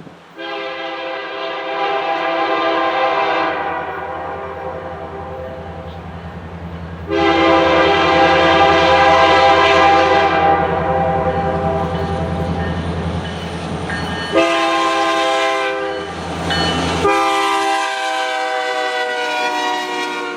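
EMD SD70ACu diesel locomotive's air horn sounding the grade-crossing signal: two long blasts, a short one, then a long one. A low diesel engine drone runs beneath the horn and fades out shortly before the last blast.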